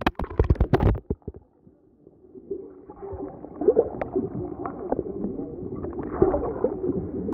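A phone's microphone dropping into the sea and recording underwater. A clatter of knocks as it falls in, a moment of near quiet, then muffled gurgling with everything dull and the high sounds cut away.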